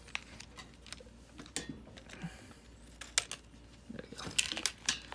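Sparse light clicks and taps, growing busier near the end as a small clear plastic bag of plastic accessory pieces is handled.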